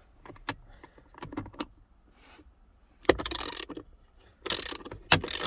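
Hand ratchet with a 1/4-inch socket turning out one of the bolts that hold the steering wheel's horn pad. A few light clicks, then two quick runs of ratcheting about three and four and a half seconds in.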